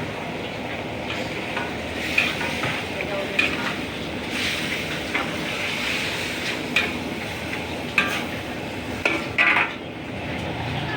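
Pieces of boiled beef frying with sautéed onion, garlic and ginger in a pot, a steady sizzle, while being stirred: a utensil scrapes and knocks against the pot now and then, most sharply about two, eight and nine and a half seconds in.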